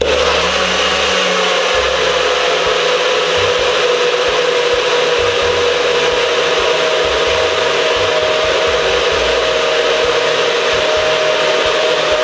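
Nutribullet blender motor running at full speed, blending berries, seeds and coconut milk into a shake. It starts abruptly, and its whine rises slightly in pitch over the run.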